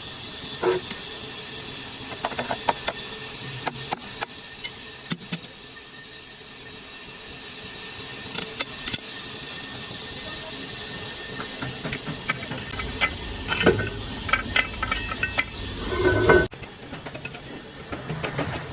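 Scattered metallic clinks and knocks of tools and metal parts being handled. A low rumble joins about two-thirds of the way in and cuts off suddenly near the end.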